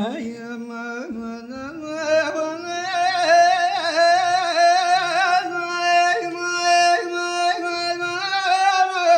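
A single voice singing unaccompanied, holding long notes decorated with wavering turns, with the pitch stepping up about two seconds in.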